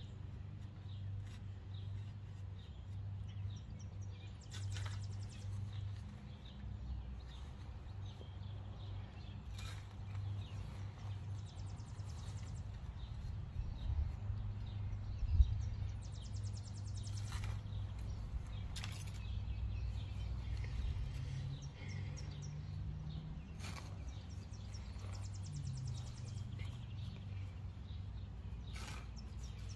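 Shovel digging into soil and turf: scattered scrapes and cuts a few seconds apart, the loudest about halfway through. Birds chirp, and a steady low hum runs underneath.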